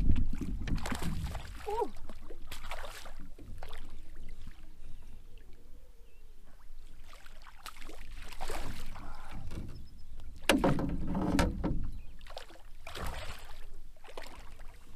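Water splashing in irregular bursts as a hooked smallmouth bass thrashes at the surface beside the boat and the landing net dips in while the fish is netted on a fly rod. The biggest burst of splashing comes about ten and a half seconds in.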